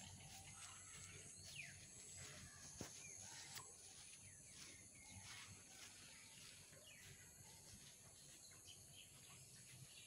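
Near silence: faint forest ambience, a steady high hiss with a few short, scattered bird chirps and faint ticks.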